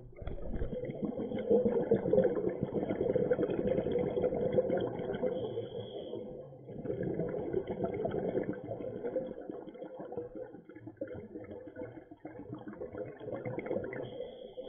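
Scuba regulator exhaust bubbles from a diver breathing out, heard underwater as a bubbling rush. A long surge fills the first six seconds, then lighter bursts follow after a brief lull.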